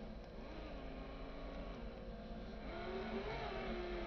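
Radio-controlled truck's drive motor and gears whining as it crawls over a rough dirt track, the pitch rising and falling again and again as the throttle is worked.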